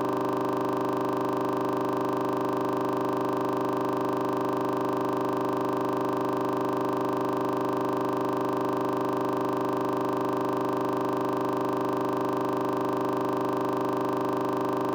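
A steady, unchanging drone of several held tones at a constant level, like a sustained electronic pad chord.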